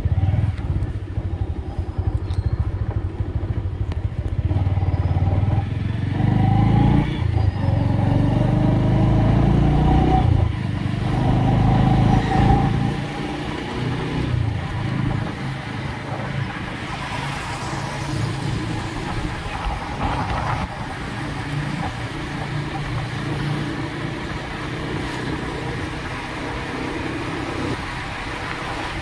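Engine of a motor two-wheeler running as it is ridden along a road, louder for the first dozen seconds, then settling into a steadier, quieter run.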